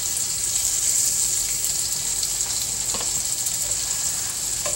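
Thin-cut chicken breasts frying in oil in a skillet: a steady, high sizzling hiss with fine crackles.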